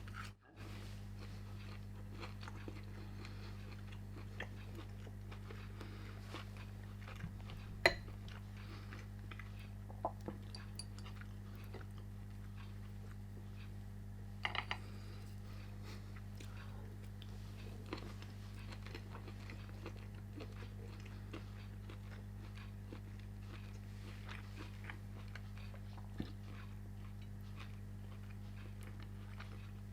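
Close-up eating sounds: a person chewing food, with scattered crunches and mouth clicks, the sharpest about eight seconds in, over a steady low hum.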